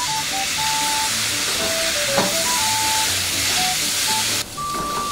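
Soy sauce sizzling as it hits a hot frying pan of squid and potatoes: a loud, steady hiss that cuts off suddenly near the end. A spatula stirs the pan.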